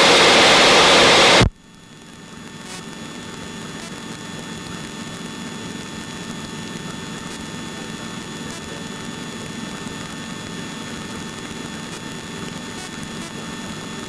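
Steady rushing engine and propeller noise inside a small aircraft's cabin, which cuts off abruptly about a second and a half in. It gives way to a much quieter steady hiss with a faint thin electronic whine, which swells slightly over the next two seconds and then holds.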